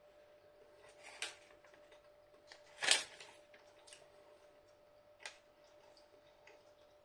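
A person eating dry reformed chicken snack bites: faint chewing and mouth clicks, with a few short, sharper noises, the loudest about three seconds in, over a faint steady hum.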